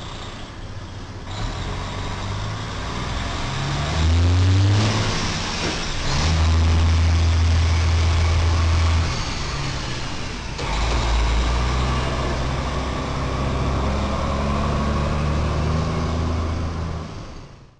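Semi truck's diesel engine revving up as it pulls away, climbing in pitch twice between gear changes and then running at a steady pitch.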